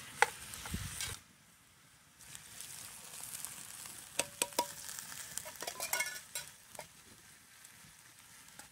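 Vegetables going into a hot cast-iron Dutch oven of browned meat and sizzling, loudest in the first second and then softer. Canned green beans are then poured in, with a few sharp clicks of the can against the pot.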